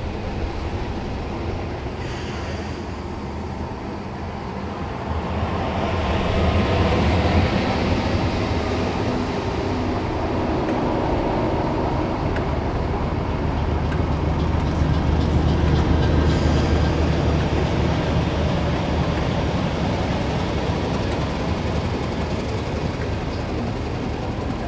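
Class 31 diesel locomotive's English Electric V12 engine running, a steady low mechanical sound that grows louder about five seconds in.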